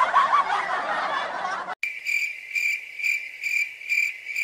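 Canned audience laughter for about the first two seconds, cut off abruptly, followed by a cricket-chirp sound effect: a high, thin chirping repeated about four times a second.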